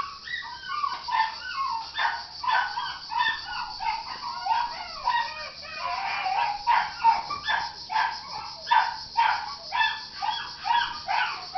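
Dogs barking and yipping over and over, short high calls about two a second.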